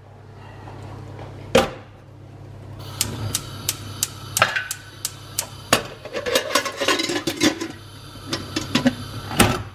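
A stainless steel pressure cooker clanks down on a gas hob's grate. Then the gas hisses on and the burner's electric igniter ticks about three times a second until it lights. Metal scrapes as the lid goes on, with a loud clunk near the end as the lid is closed.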